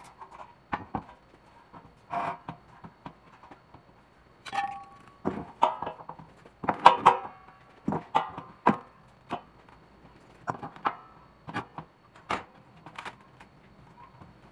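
Galvanized steel C-channel profiles being handled on a wooden workbench: irregular knocks and clanks of metal set down and shifted, several with a short metallic ring, about a dozen in all and busiest in the middle.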